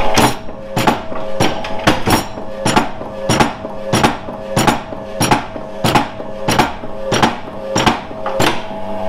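AP Lever mechanical guillotine running under power on its single-phase electric motor and V-belt drive: a metallic clank repeats evenly about every two-thirds of a second over a steady motor hum.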